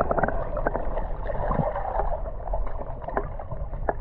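River water splashing and sloshing as a fishing net is hauled and handled, with irregular small knocks.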